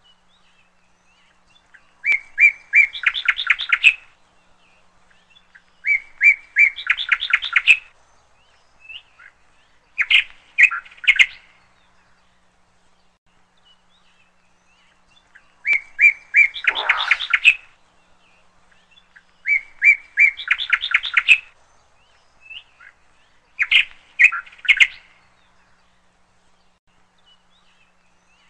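A songbird chirping the same short phrase six times, each a couple of seconds long and roughly every four seconds: a few clear notes followed by a quick run of higher notes.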